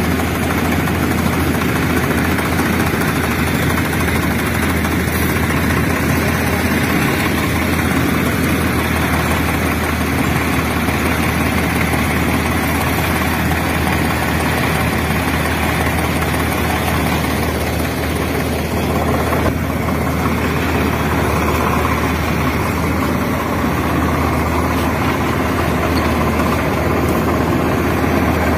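Remote-control toy excavator working its digging arm, with a steady, unbroken engine-like running sound.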